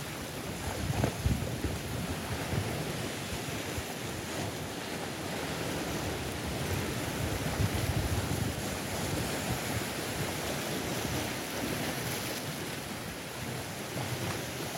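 Sea waves breaking and washing over shoreline rocks: a steady hiss of surf that swells louder about a second in and again around the middle.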